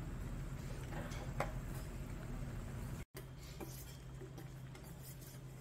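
Pot of spicy catfish stew bubbling on a tabletop burner against a steady low hum, with a few light clicks and clinks of dishes and cutlery. The sound cuts out for an instant about three seconds in.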